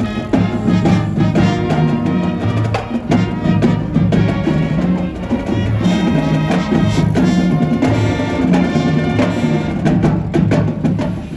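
Background music with percussion and a steady beat.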